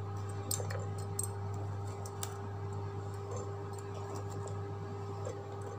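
A steady low hum with a few faint clicks and light taps.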